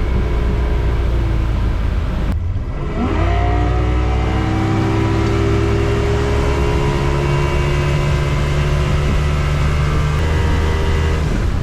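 Outboard motor running hard with the boat up on plane, over a haze of wind and water rush. About two seconds in the sound drops out briefly and the engine tone climbs back up; near the end the engine tone breaks off as the throttle comes back.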